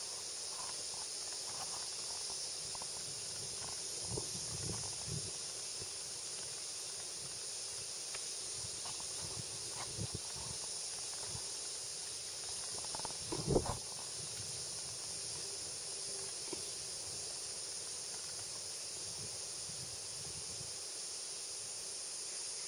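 Steady high chirring of insects, with scattered low rumbles and knocks of rocks tumbling down the flank of the erupting Arenal volcano. The loudest comes a little past halfway.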